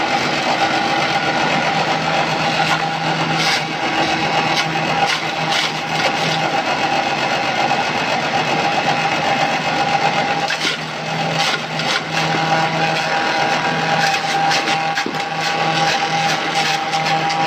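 Two small electric chopping machines running with a steady hum while shredding cabbage leaves fed into their hoppers, with irregular crackling from the leaves being cut by the blades.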